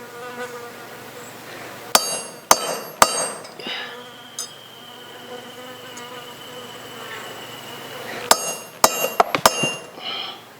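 Heavy club hammer striking metal to cut a spoon, three ringing blows about two seconds in and four more near the end. Between the two groups of blows a steady high buzz, typical of an insect, carries on.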